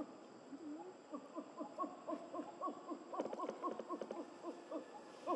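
Rapid series of short, low hooting animal calls, several a second and overlapping, as if from more than one caller.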